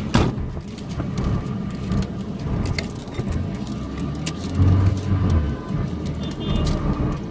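Low engine rumble and road noise of slow street traffic, heard from inside a car's cabin, with a few light clicks. The rumble swells about four to five seconds in.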